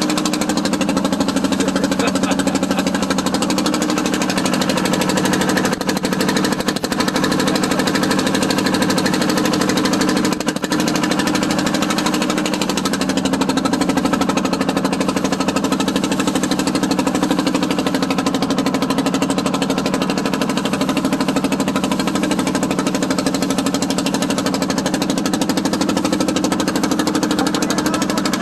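Motorboat engine running steadily with a fast, even pulsing beat; its pitch shifts slightly about twelve seconds in.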